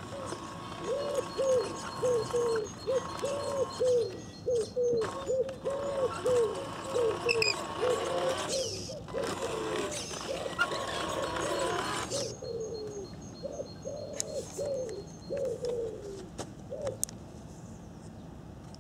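A pigeon cooing over and over, a long run of rising-and-falling notes about two a second. Underneath, through most of the first twelve seconds, a faint steady whine from the model truck's electric drive as it moves.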